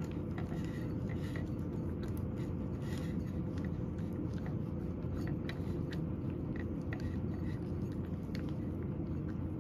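Cat eating from a ceramic bowl: many small, irregular chewing clicks, over a steady low hum.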